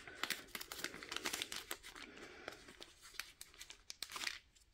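Thin plastic packaging bag crinkling and rustling as hands dig a small tool out of it, with a louder flurry of crackles near the end before it stops.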